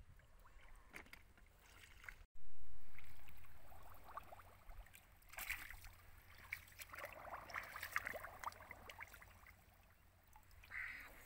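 Shallow muddy water splashing and sloshing in irregular bursts as hands and a digging tool work through the mud and water, busiest in the second half. There is a brief dropout in the sound about two seconds in.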